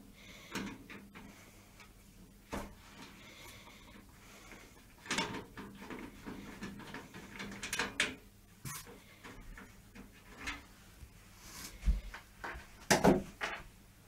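Screwdriver working screws out of the back of a steel micro ATX PC case: scattered clicks, scrapes and knocks of metal, with a few louder knocks near the end.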